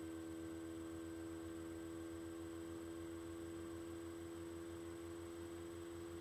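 Faint, steady electrical hum: one unchanging tone with several higher tones above it and a thin high whine, with nothing else heard.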